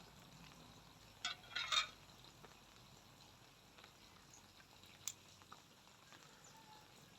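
A person eating boiled pork bones in soup: two short, quiet slurps about a second and a half in, then a single faint click.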